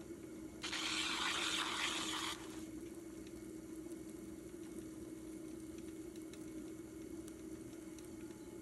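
Electric pottery wheel running with a steady hum as a wet clay mug spins on it, shaped with a metal rib and a hand inside. About a second in, a loud hiss lasting under two seconds starts and stops abruptly.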